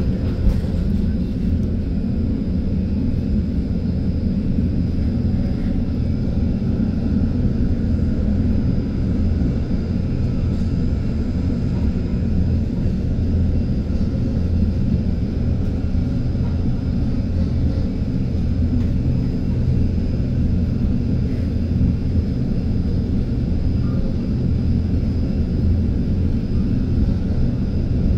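Steady low rumble of city street noise, even throughout with no single event standing out.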